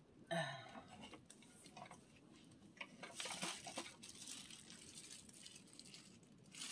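Faint rustling and crinkling of a disposable plastic glove and crisp, dried tangerine peels as a hand presses and settles sugar-soaked tangerine flesh and peels in a plastic container. The crinkling is densest about three to four seconds in.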